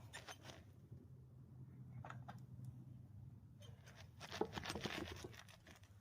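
Faint scraping and light clicks of hands and tools working at the front wheel hub, greasing the dry front wheel bearing. The handling noise thickens into a burst of scratchy clicking about four seconds in.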